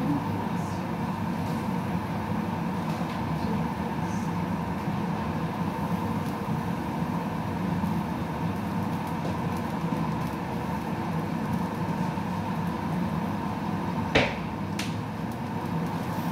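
Steady low hum with a faint hiss, kitchen background noise while the dish cooks, broken by a sharp click about fourteen seconds in and a fainter one just after.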